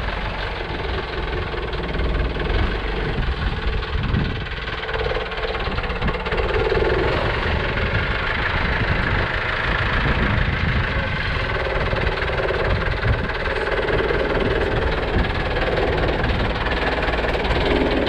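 An engine running steadily, its tone swelling and easing now and then, a little louder in the second half.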